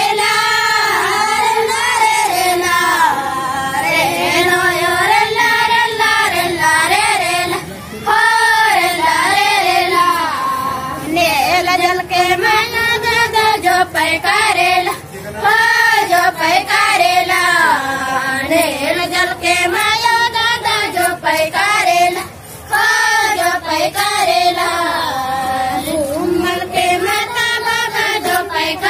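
A group of girls singing a Gondi rela song (rela pata) together in repeated sung phrases, with a short break about every seven seconds.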